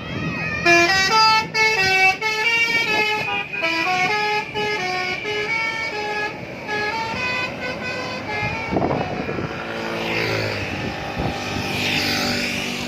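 A bus's "telolet" multi-tone musical horn plays a quick tune of stepping notes for about eight seconds, then gives way to a rougher, noisier stretch.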